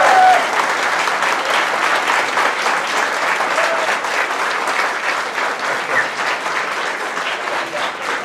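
A large audience of students clapping together in sustained applause. A crowd shout is dying away in the first moment.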